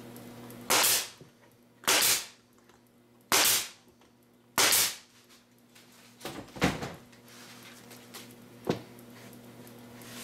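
Nail gun firing four times, about a second and a quarter apart, each shot a sharp bang with a short tail, driving nails through wood; a few lighter knocks of the wood being handled follow.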